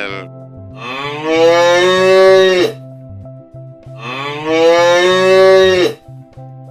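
A cow mooing twice, two long calls of about two seconds each that rise in pitch and then hold before cutting off.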